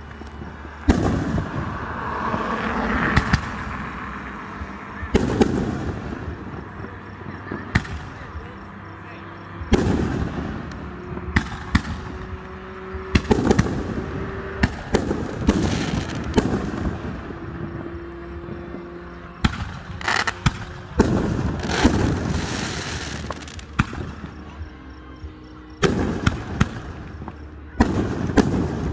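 Aerial fireworks display: a string of sharp shell bursts at irregular intervals, each followed by crackling and rumbling, with several bangs close together about ten to sixteen seconds in and again near the end.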